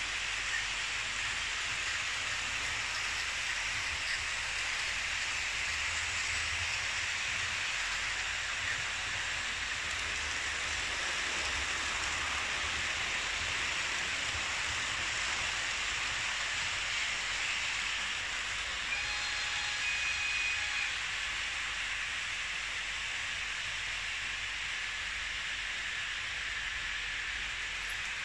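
Märklin H0 model trains running on track laid on a wooden floor: a steady rolling hiss of metal wheels on the rails over a faint low hum, with a brief faint whine about two-thirds through.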